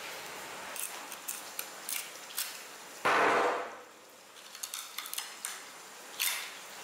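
Long knife cutting and scraping along a large tuna's backbone on a wooden board: scattered clicks and knocks, with a louder rush of noise about three seconds in and again near the end.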